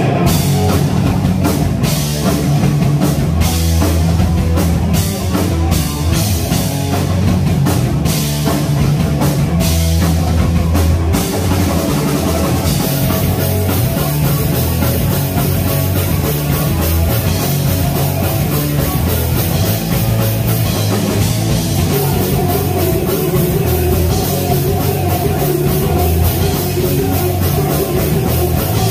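A live punk rock band playing loud on electric guitars and a drum kit, kicking in suddenly at the start. About thirteen seconds in, the drumming changes to a denser, steadier cymbal-driven beat.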